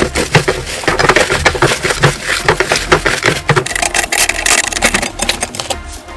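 Crunchy slime being squeezed and pressed by hand, giving a dense, rapid run of irregular crackles and clicks that thins out near the end.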